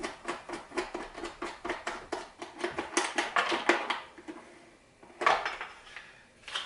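Rapid clicking and rattling of a generator's plastic air box cover being worked loose and pulled off, with one louder knock about five seconds in.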